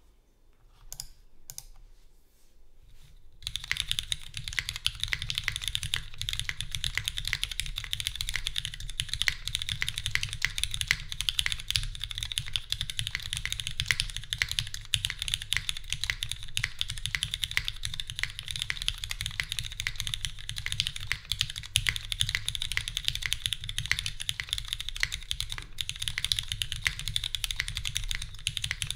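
Typing on a Pearlboards Pandora 60% custom mechanical keyboard with lubed, filmed Cherry MX Black linear switches, a full aluminium plate, no foam and GMK keycaps. A few separate keystrokes come first, then steady, rapid typing from about three and a half seconds in.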